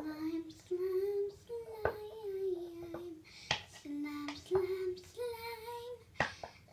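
A young girl singing a tune in held notes, with a few sharp clicks in between.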